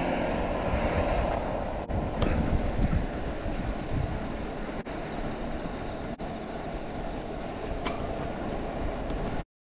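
Wind rushing over the microphone together with tyre and road rumble from a folding bicycle riding along an asphalt road, a steady low rumble that cuts off suddenly near the end.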